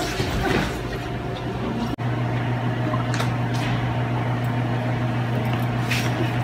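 A steady low hum with a few faint taps and scuffs over it; a brief dropout about two seconds in, after which the hum is louder.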